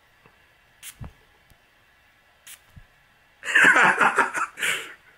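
A light handling thump and two brief faint hisses, then, about three and a half seconds in, a loud breathy vocal outburst from a man lasting about a second and a half in two parts.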